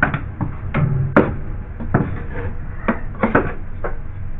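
A stick knocking and scraping at uneven intervals, with several sharp knocks, as it clears cobwebs from an opened ceiling.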